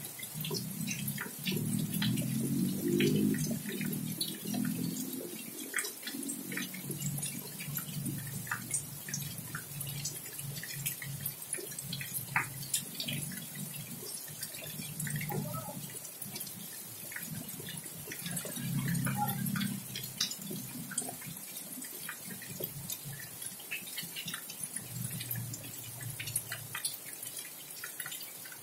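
Rain falling, with many close drops dripping and splashing in an irregular patter over a steady hiss. A low rumble swells and fades underneath, strongest in the first few seconds.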